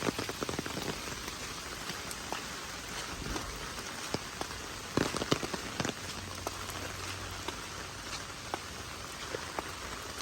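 Heavy rain falling steadily, with many separate drops ticking close by and a short louder spell about five seconds in.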